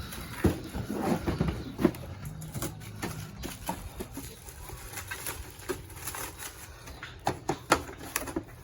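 Cardboard box and packing material scraping, rustling and knocking as a tower fan is pulled and wrestled out of a box it is jammed tight in; irregular bumps and scrapes, loudest about two seconds in and near the end.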